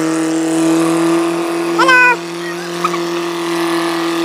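Vehicle engine running at a steady speed, heard from on board as a constant low hum. A brief loud shout cuts through about two seconds in.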